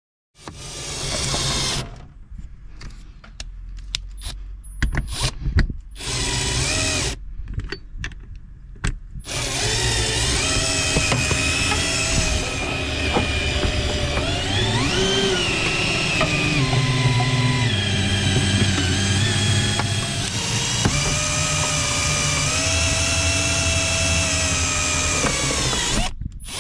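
Cordless drill turning a suction-cup wire-winder that reels cutting wire through the windshield's urethane bead to cut the glass out. It runs in short stop-start bursts at first, then about nine seconds in settles into a long continuous run whose motor pitch dips and rises.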